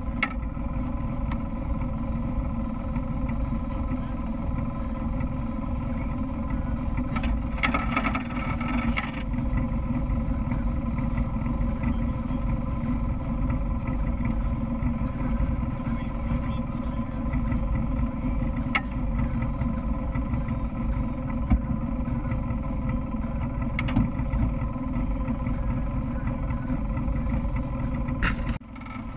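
ATV engine idling steadily while the machine stands parked, with a brief rushing noise about eight seconds in.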